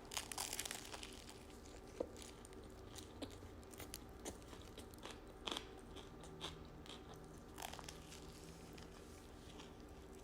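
A bite into a toasted sub sandwich, with a crunchy crackle lasting about a second at the start. Then comes quiet, close-up chewing with scattered soft clicks and crunches.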